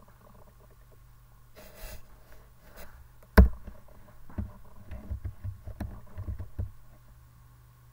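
Computer keyboard and desk handling noise during typing: a short rush of noise near two seconds in, then a sharp click about three and a half seconds in, the loudest sound, followed by a run of dull, irregular thumps.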